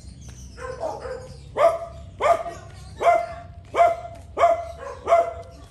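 A dog barking over and over at an even pace, about seven barks, roughly one every 0.7 seconds, starting about a second in.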